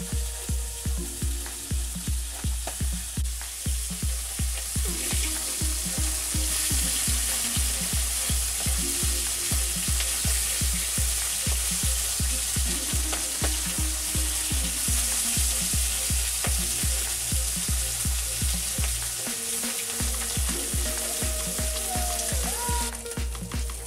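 Fish sizzling as it fries in hot oil in a kadai, stirred and turned with a metal spatula. Background music with a steady bass beat about three times a second plays over it.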